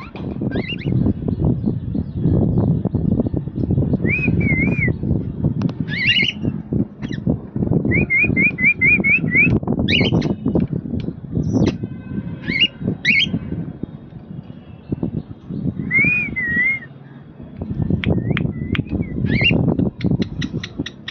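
Cockatiels whistling and chirping: scattered short wavering whistles and chirps, with a quick run of about six repeated notes near the middle, over a loud, steady low rumbling noise.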